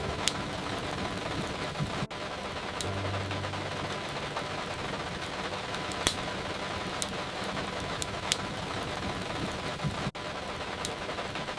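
Steady rain hiss with the occasional sharp crackle and pop of a wood fire, about half a dozen pops in all. The sound cuts out for an instant twice, about two seconds in and near the end.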